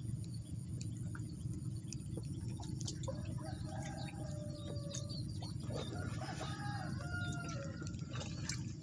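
Chickens clucking in a series of short calls, mostly in the middle of the stretch, over a steady low background rumble.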